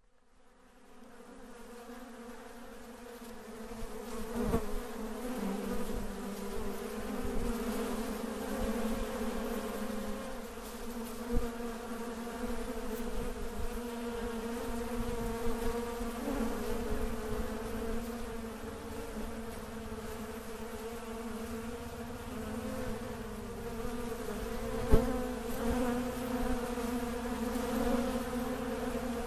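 Insects buzzing in a steady, slightly wavering drone that fades in at the start, with a few sharp knocks over it, the loudest near the end.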